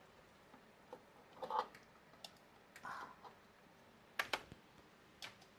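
Scattered light clicks and taps from handling test equipment at a repair bench while setting up an oscilloscope waveform test. Two sharper clicks come in quick succession a little past the middle.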